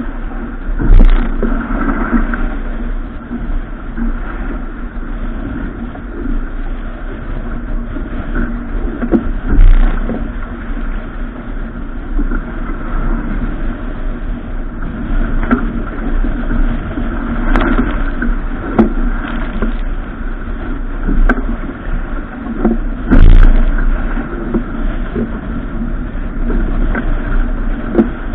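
Boat underway on open water: a steady rushing of wind and water, with a few heavy thumps, the loudest about a second, ten seconds and twenty-three seconds in.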